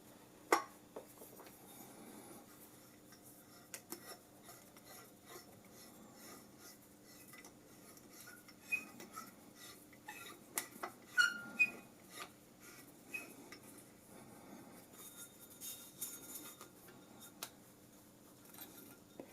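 Metal parts of a microphone stand being fitted together by hand: scattered light clinks, taps and scrapes, with a few brief metallic pings about ten to twelve seconds in.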